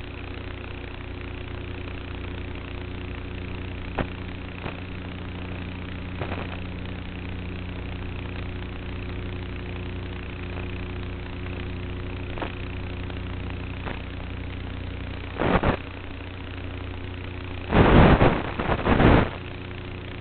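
Electric motor and propeller of an E-Flite Apprentice S RC trainer plane in flight, a steady hum heard from the onboard camera. There are a few faint clicks, then a short loud noisy burst about three-quarters of the way in and a louder double burst near the end.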